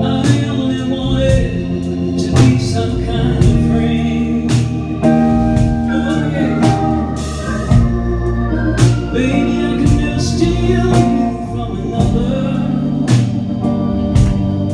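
Live band music: sustained chords with a drum kit and cymbal hits, and a woman singing at times.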